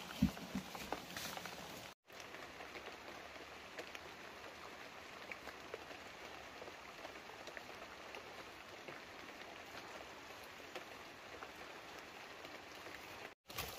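Steady light patter of rain drops on wet forest foliage, a soft even hiss with scattered faint ticks. A couple of footstep thumps on leaf litter come right at the start.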